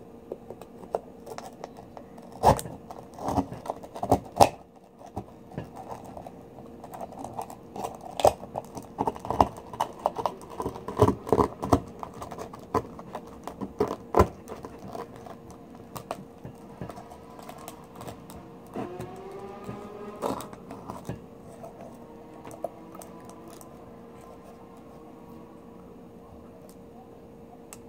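Metal blade clicking and scraping against a pearl oyster's shell as it is pried at the edge to open it, in a run of sharp clicks and scrapes that thin out and grow quieter in the last third.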